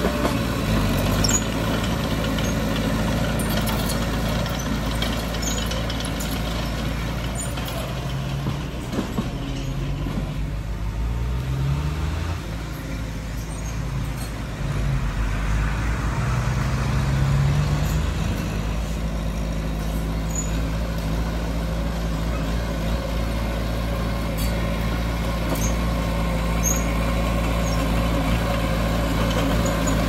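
Heavy diesel earthmoving machinery running steadily, from a bulldozer and dump truck at work. The engine pitch rises briefly a few times, about ten and again about sixteen seconds in.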